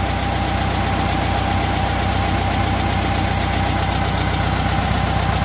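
Carbureted air-cooled VW flat-four engine of a single cab pickup idling steadily, the idle sitting a little high. It won't idle down, which the mechanic puts down to bent throttle linkage.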